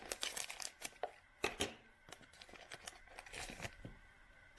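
A trading card pack's wrapper being torn open and crinkled, with two sharper snaps about one and a half seconds in and a rustle near the end.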